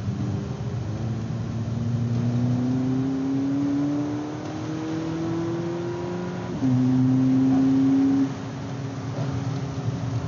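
Volkswagen Polo GTI's turbocharged four-cylinder engine heard from inside the cabin, pulling hard with its pitch rising steadily for about six seconds, then dropping suddenly at an upshift. It runs louder and steady for about a second and a half, then eases off.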